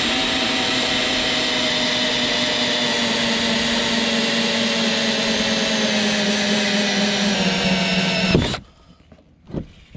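20-volt cordless drill running a 2-inch hole saw into a plastic boat hull: a steady motor whine that sags slightly in pitch, then stops abruptly about eight seconds in.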